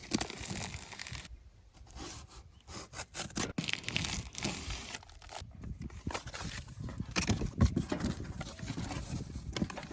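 Cardboard and plastic packaging being handled and opened while unboxing a hitch bike carrier: irregular rustling and crinkling broken by short knocks and clicks.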